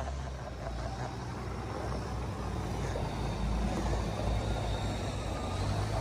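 Diesel semi truck pulling an end-dump trailer driving slowly past on gravel, its engine running with a steady low sound that grows a little louder as it passes.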